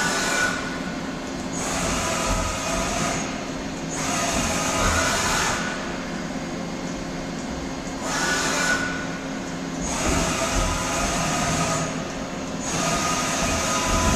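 Doosan Puma 400LB CNC turning center running: a steady mechanical hum, with a louder, hissing surge every two to three seconds.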